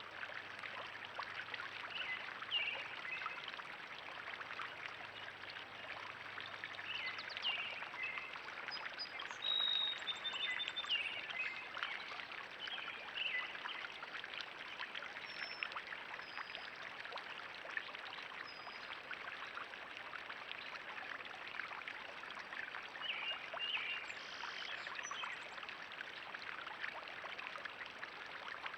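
Water steadily trickling and splashing in a backyard pond, with small birds chirping now and then over it; one clear, high note about ten seconds in is the loudest call.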